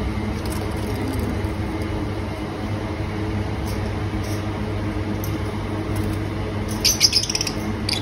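Lovebirds giving short chirps and squawks over a steady low hum, with a cluster of sharper calls about seven seconds in.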